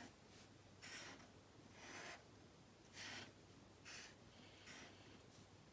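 Black markers drawing on paper in short, faint strokes, about one a second.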